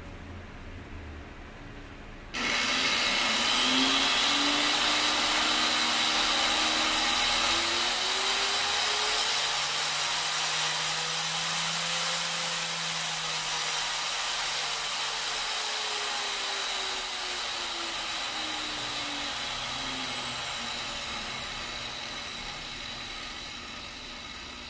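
Angle grinder's motor switched on about two seconds in, running at low speed through a variable speed controller. Its whine rises slowly as the speed knob is turned up, peaks around the middle, then falls back as the speed is turned down, still running slowly at the end.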